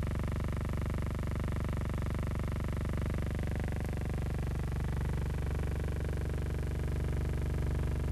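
Engine and rotor of a WWII-era German piston-engined helicopter running on the ground: a steady drone with a fast pulsing beat that grows a little louder near the end.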